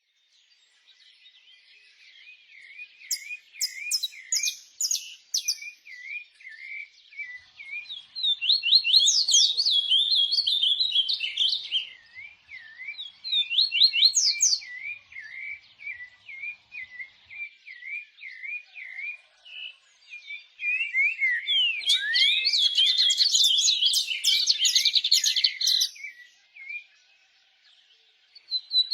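Small songbirds singing and chirping: strings of quick, rising-and-falling whistled notes, thickening into louder, rapid chattering bursts around a third of the way in and again near the end.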